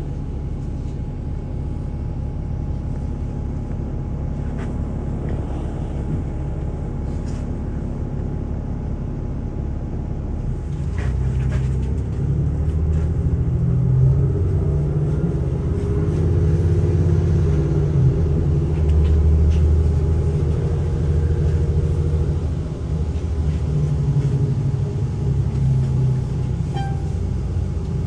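Inside a moving city bus: a steady low rumble of engine and road noise that grows louder about eleven seconds in.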